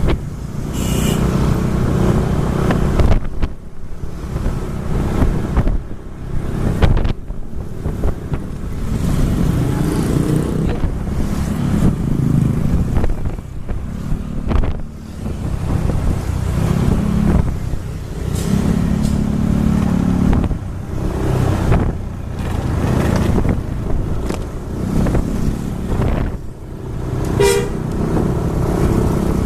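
Road vehicle engine and traffic noise, rising and falling, with a short horn toot near the end.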